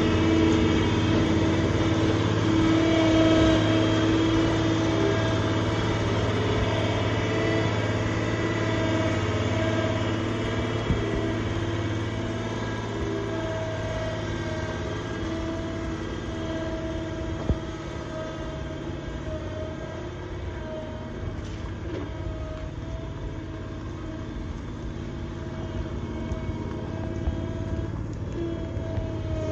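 Loader tractor's engine running steadily as it tows a chained-on cement mixer trailer over gravel, with a few sharp knocks along the way.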